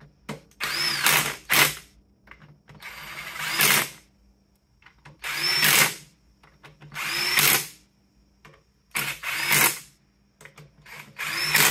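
Cordless power driver spinning bolts into a differential carrier, in a series of short runs of about a second each with pauses between, as each bolt is zipped in snug before torquing.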